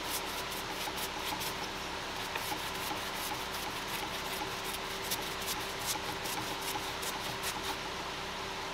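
A paintbrush scratching back and forth in quick strokes, a few a second, brushing paint onto a rough wooden surface; the strokes stop near the end.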